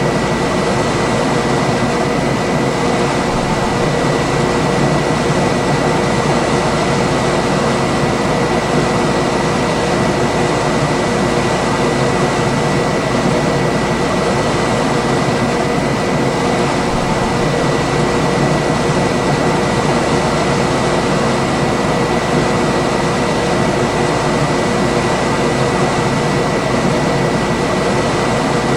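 Room air conditioner running steadily: an even blowing rush with a constant hum and a faint high whine.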